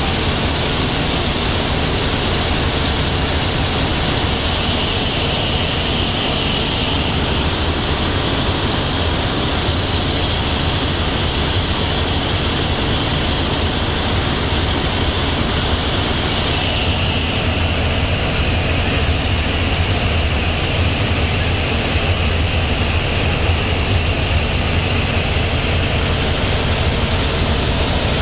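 Robinson R44 Raven helicopter in cruising flight, heard from inside the cabin: the rotors and piston engine make a steady loud drone under a rushing airflow hiss. The hiss drops slightly in pitch about two-thirds of the way through.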